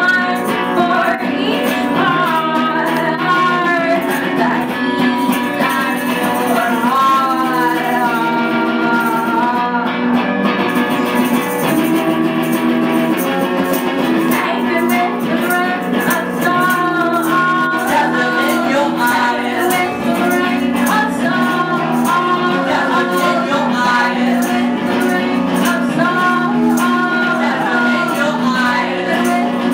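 A rock band playing a song, with a singer over guitar, bass and percussion.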